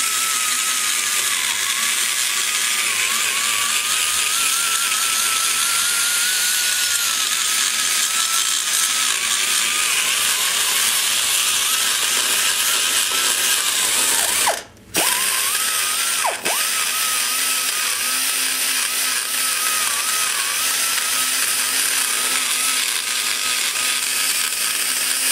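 Die grinder spinning a carbide burr as it cuts the aluminum in the exhaust port bowl of an LT-1 cylinder head: a steady high whine that wavers in pitch as the cutter loads, over a grinding hiss. About fifteen seconds in it briefly lets off and spins back up, and there is a second short dip a moment later.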